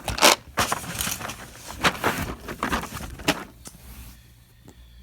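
Plastic tool tray being lifted out of a mechanics tool set case, with knocks and the clatter of loose sockets and tools for the first three seconds or so, the loudest knock right at the start, then quieter handling.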